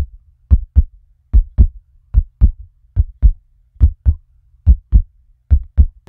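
Heartbeat: a steady lub-dub, each beat a pair of short, low thumps, a little over one beat a second.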